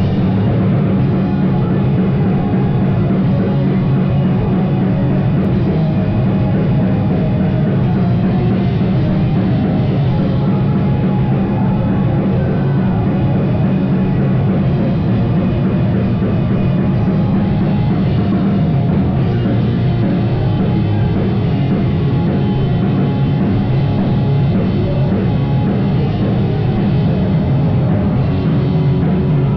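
Live rock band playing loudly, with drum kit and instruments, heavy and distorted, with no vocals heard.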